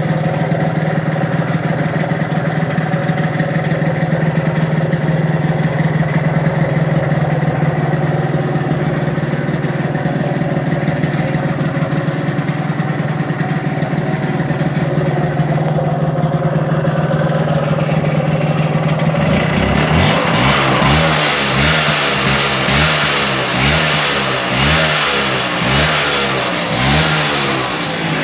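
Vespa T5 Classic scooter's two-stroke single-cylinder engine idling steadily, then from about two-thirds of the way through revved up and down in repeated quick blips, about one a second.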